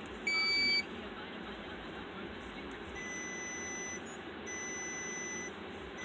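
Snap-on scan tool giving one short, high electronic beep as the command to clear all vehicle codes is confirmed. Later a fainter high steady tone sounds three times, about a second each with short gaps, over a low steady hum.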